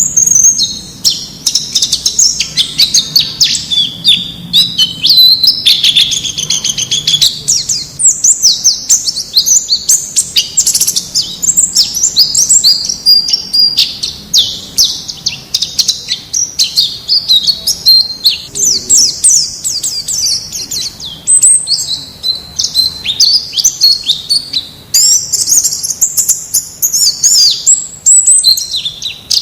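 Wild white-eyes (pleci) singing: an unbroken stream of fast, high-pitched chirps and twittering trills, used as a masteran recording to get caged white-eyes singing.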